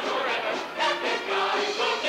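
Large mixed high school choir, women's and men's voices together, singing a Broadway number.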